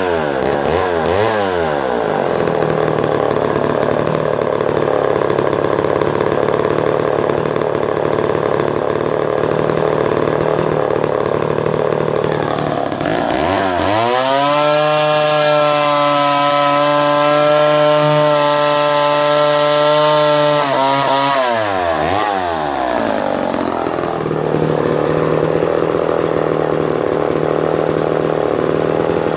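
Homelite Super XL 12 Automatic 58cc two-stroke chainsaw engine, freshly started: a couple of quick throttle blips, then running at idle, then revved up to full throttle about 13 seconds in and held there steadily for some seven seconds before dropping back to idle. At full throttle it feels slightly lean to the owner, though it holds the revs.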